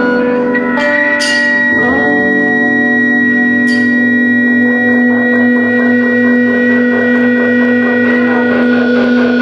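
An ensemble of guitars playing a noise improvisation in layered, sustained drones that sound almost organ-like. The held tones shift about two seconds in, and a few sharp clicks cut through.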